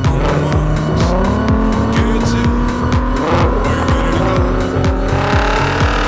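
Volkswagen Golf R32's 3.2-litre VR6 engine under acceleration, its note rising in pitch over the first second or so and then holding. Background music with a steady beat plays alongside.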